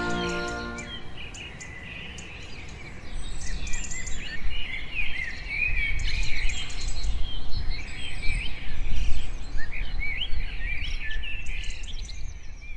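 Music ends about a second in, then several small birds chirp and sing in quick, overlapping bursts over a steady low rumble of outdoor background noise.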